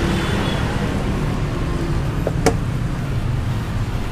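Steady low rumble of background motor noise, with a single sharp click about two and a half seconds in.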